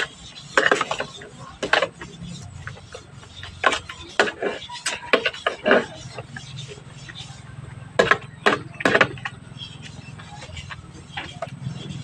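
Eating sounds: irregular short clicks and smacks of chewing, over a steady low hum.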